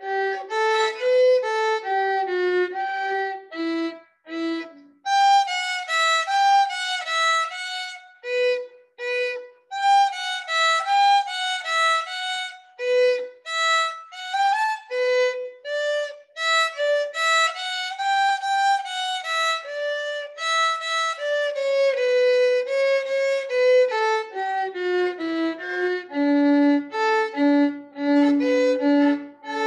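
Solo violin, bowed, playing a melody of separate notes, with short breaks between phrases about four and eight seconds in.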